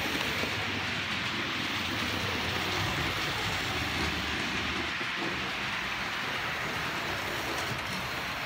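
OO gauge model trains running on the layout: a steady noise of small wheels on the rails and the locomotives' electric motors.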